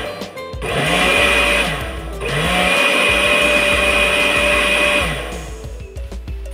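Countertop electric blender running in two short bursts, the motor whirring up to speed and winding down each time, the first burst about a second and a half long and the second about three seconds, as it blends a thick mango mixture.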